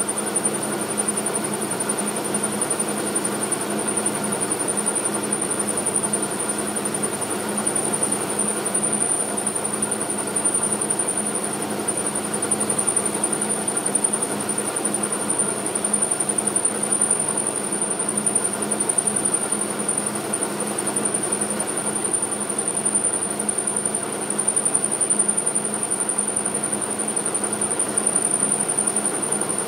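Logan metal lathe running steadily under power, its motor and gearing giving an even hum with a thin high-pitched whine over it, while a cutter turns down a part in the chuck.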